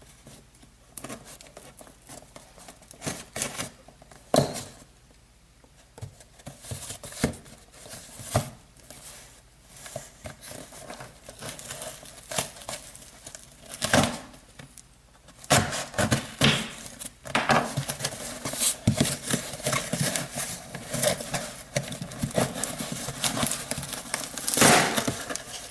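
A cardboard shipping box being opened by hand: irregular tearing, crinkling and rustling of packaging with scattered knocks and scrapes, sparse at first and much busier over the second half.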